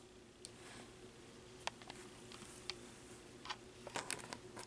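Faint scattered clicks and taps of hands working a computer and handling the webcam, over a faint steady hum. The taps are loudest about four seconds in, as a hand passes right over the camera.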